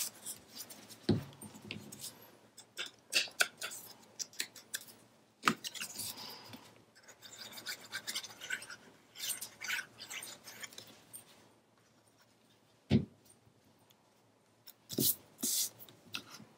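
Hands handling paper and cardstock on a cutting mat: scattered light rustles and scrapes, with a few sharp knocks, the loudest about thirteen seconds in and two more near the end.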